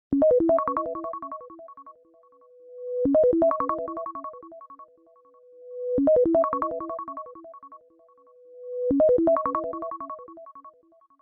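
A phone ringtone: a short synthesized keyboard melody of quick notes, played four times about every three seconds, with a held note swelling in before each repeat.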